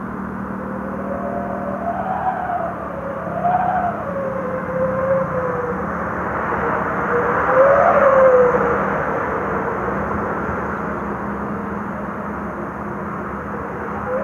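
Yamaha motor scooter riding through traffic: a steady engine hum with road and wind noise, and engine notes rising and falling in pitch several times. It is loudest about eight seconds in, as a truck passes close by.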